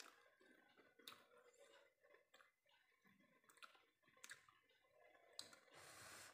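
Near silence with faint, scattered mouth clicks and lip smacks from eating by hand, and a short breathy hiss near the end.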